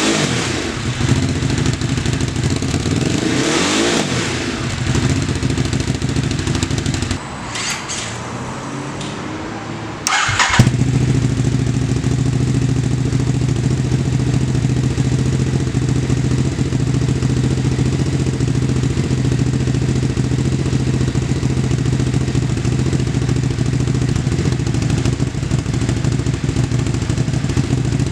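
Ducati Hypermotard 939 SP's L-twin engine blipped up and back down twice, then idling steadily for most of the time. There is a quieter stretch about a third of the way in, ended by a sharp jump in level.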